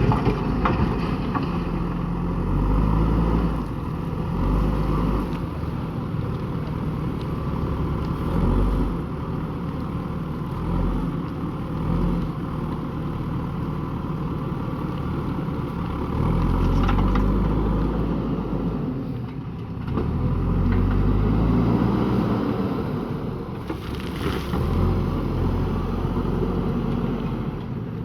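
Diesel engine of a JCB backhoe loader running under working load, its pitch rising and falling as the machine digs, with a few sharp knocks along the way.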